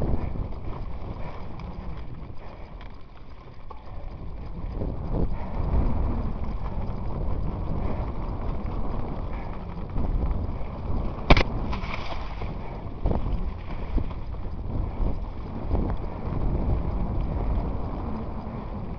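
Mountain bike being ridden over rough ground: rumbling wind on the microphone and irregular rattles and knocks, with one sharp knock about eleven seconds in.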